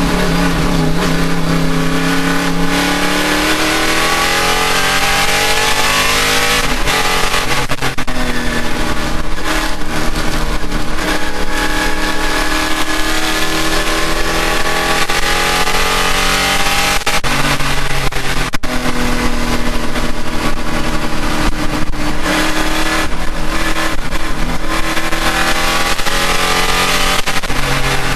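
Race car engine running hard, its pitch climbing and dropping again and again as it revs up through the gears and back down, with road and wind noise over it.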